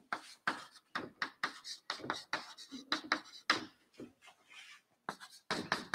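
Chalk writing on a blackboard: a quick irregular run of short taps and scratchy strokes as letters are written, with a brief pause about four seconds in.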